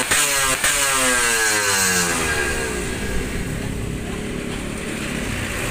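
Yamaha RX-King single-cylinder two-stroke engine through an Altec C20RR exhaust, blipped sharply twice so the revs jump and fall away. After the second blip the revs die down slowly and settle into a steady idle about three seconds in.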